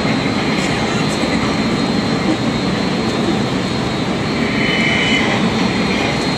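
Hurricane simulator booth's blowers running hard, a loud steady rush of wind as the machine drives the air at around 50 to 70 mph.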